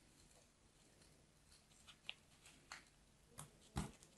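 Craft knife blade slicing into packed kinetic sand held in a plastic mould: a few quiet, short, crisp cutting crunches, the fullest and loudest near the end.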